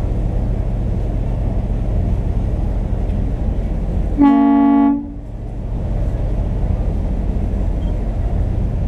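Ferry boat horn giving one short blast of just under a second, about four seconds in, over the steady low rumble of the boat underway.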